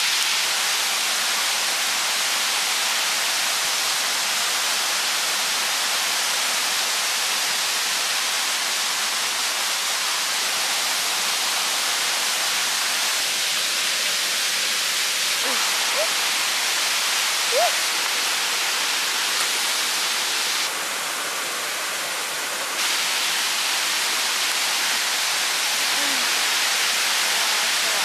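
Mountain stream rushing steadily, an even, unbroken wash of water noise. It drops slightly for about two seconds about three-quarters of the way through.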